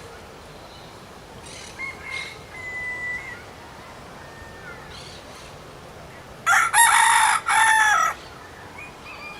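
Rooster crowing once, loudly, about six and a half seconds in, in two parts. Fainter calls come a few seconds earlier.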